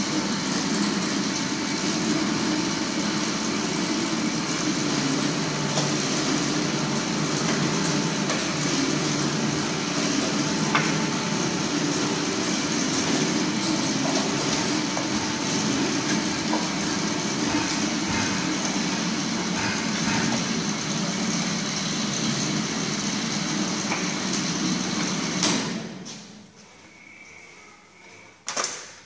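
XH-450 dumpling-wrapper machine running steadily, its motor driving the dough-sheeting rollers and conveyor belts with a faint steady whine. It winds down and stops about three seconds before the end, followed by a single click.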